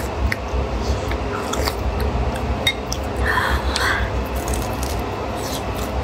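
Close-miked eating sounds: a beef huo shao flatbread with a crisp crust being bitten and chewed, with frequent small wet mouth clicks and smacks over a steady low rumble.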